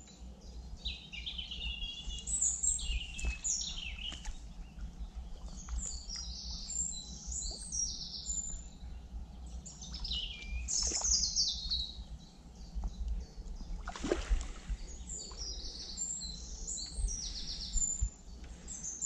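Birds singing, with many short high chirps and trills, over a low rumble. A brief rushing noise about fourteen seconds in is the loudest moment.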